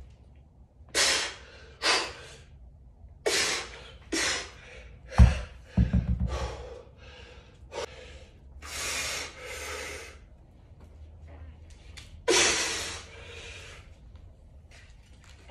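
A man's forceful gasping breaths, each a short sharp blast, as he strains through heavy kettlebell cleans, squats and push presses. About five seconds in, a heavy kettlebell is set down on the rubber gym floor: one loud thud, then a short rattle.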